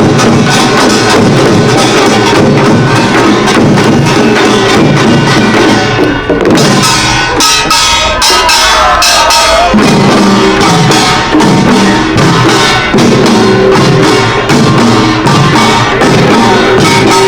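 A pungmul percussion band playing fast, dense rhythms on small gongs and drums, likely kkwaenggwari, janggu, buk and jing. About six seconds in the drums drop out for a few seconds while a wavering higher pitch carries on, then the full beat comes back.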